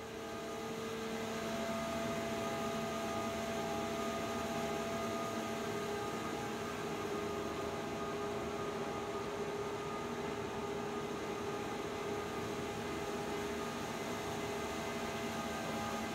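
Electro-hydraulic linear cable engine running: a steady hum and whir made of several held tones over a hiss, building slightly over the first couple of seconds and then holding even.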